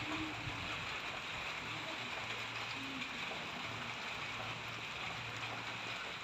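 Steady rain falling, an even hiss, with a faint low hum coming and going underneath.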